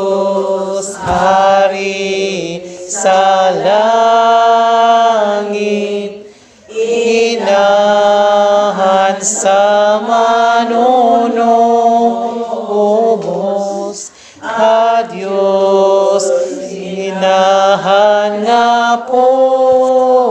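A group of singers sings a slow Cebuano farewell hymn to Mary in long held notes, in phrases with brief breaths between them.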